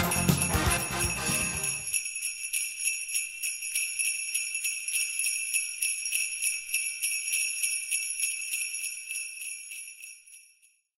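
Sleigh bells jingling with a steady rhythmic shake, several strokes a second. They come in clear as the background music ends about two seconds in, then fade out near the end.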